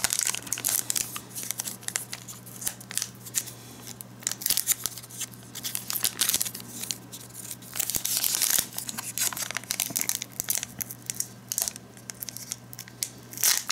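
Foil wrapper of a Pokémon TCG Hidden Fates booster pack being torn open and crinkled by hand: irregular rustles and short tears, busiest about eight seconds in.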